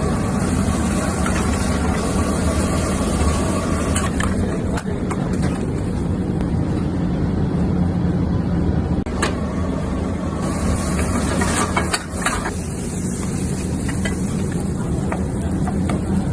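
Steady low mechanical hum and rumble with a high hiss over it, broken by a few faint clicks.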